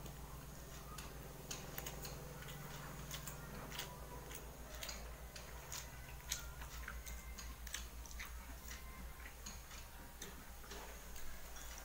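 Faint, irregular clicks and ticks of eating by hand: fingers working rice and greens against a steel plate, mixed with chewing and mouth sounds. A faint steady low hum runs underneath.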